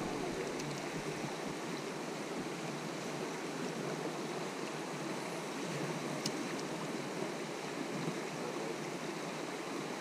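Creek water running steadily over a shallow, stony riffle. There is one faint click about six seconds in.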